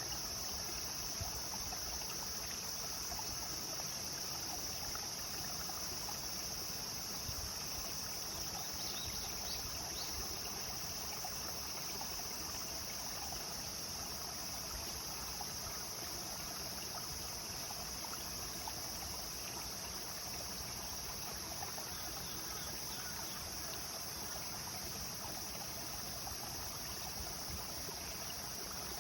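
Clear river water flowing and babbling over stones, a steady rushing with no change, under a continuous high-pitched drone of summer insects.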